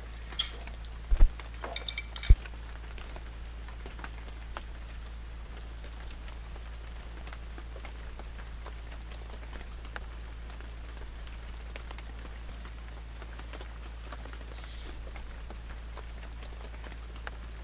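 Quiet room tone: a steady low hum and faint hiss with scattered tiny crackles, broken by a few sharp knocks in the first two and a half seconds.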